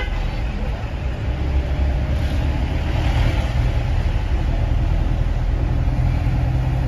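Steady engine and road rumble of a vehicle, heard from inside its cabin while it drives slowly through town traffic.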